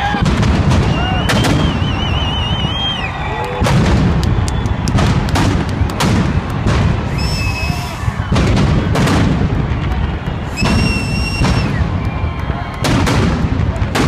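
Fireworks display: aerial shells bursting in a rapid, irregular string of loud booms and bangs over a continuous rumble. High whistles sound over the blasts several times, one of them warbling.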